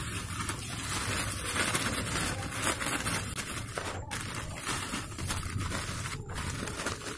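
Clear plastic bag crinkling as it is handled and filled with sand by hand, with the grainy rustle of sand being scooped, over a steady hiss.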